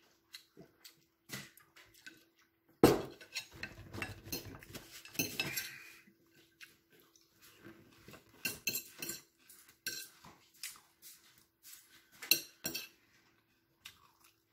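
Dishes and cutlery clinking and clattering in irregular knocks and clicks, the loudest about three seconds in.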